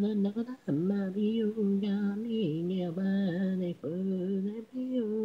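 Female pop vocals sung unaccompanied, an isolated a cappella vocal track of an idol-group song, holding and sliding between notes in short sung phrases with brief breaks between them.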